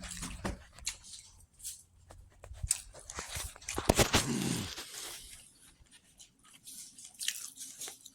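Irregular crunching and crackling, a run of sharp clicks, with a brief low vocal sound about four seconds in.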